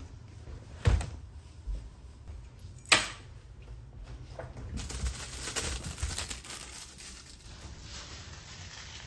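Two sharp knocks about two seconds apart, then a few seconds of rustling with light ticks and clatter.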